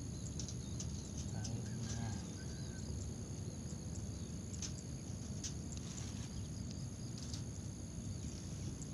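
Outdoor ambience: a steady high-pitched insect drone over a low rumble, with a few short, faint bird calls a second or two in.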